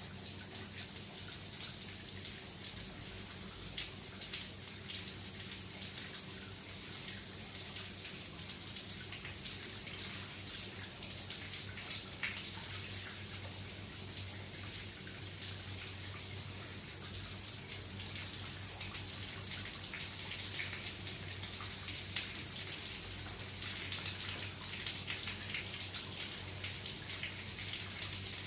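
Shower running: a steady hiss of spray splashing in a small shower stall, with a faint low hum underneath.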